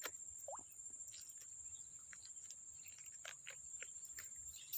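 Faint steady high-pitched chirring of crickets, with a few soft scattered clicks and taps.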